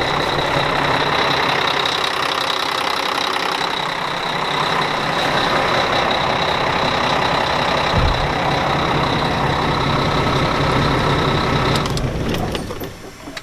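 Semi truck's Volvo D12 inline-six diesel idling steadily with a thin high whine, then shut off about twelve seconds in, the engine sound dying away quickly. A few light clicks follow near the end.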